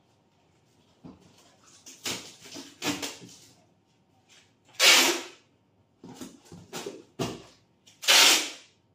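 Packing tape pulled off a handheld tape dispenser gun in a series of noisy strips, the longest and loudest about five seconds in and again near the end, with shorter pulls and a dull knock of handling the cardboard box between.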